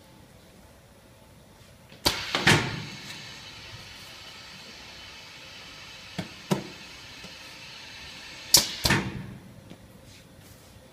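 Machinery noise: a sharp clatter about two seconds in, a steady hiss for about six seconds with two light clicks, then another clatter as it stops.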